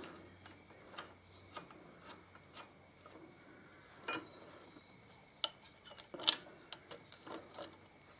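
Scattered light metallic clicks and taps as a steel bracket is held against a motorcycle frame and its bolts are started into their threads by hand. The sharpest click comes about six seconds in.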